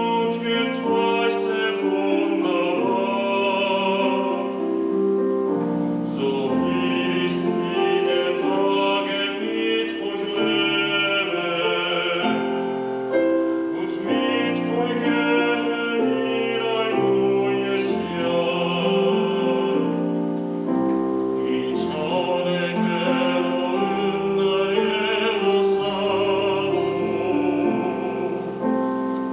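A vocal trio singing a church special song with vibrato, accompanied by piano.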